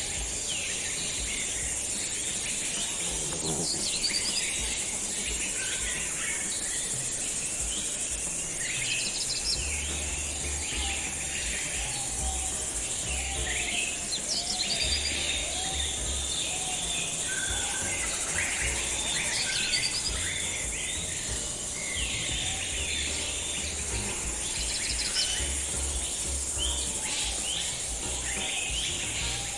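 Outdoor nature ambience: many birds chirping and trilling over a steady high insect drone.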